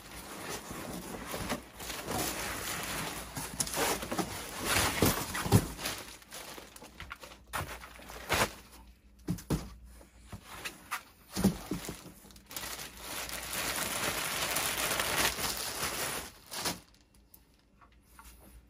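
Plastic packing wrap crinkling and rustling, with cardboard and foam packing scraping and knocking, as a telescope tripod is pulled from its shipping box and unwrapped. The rustling runs longest near the end, then stops.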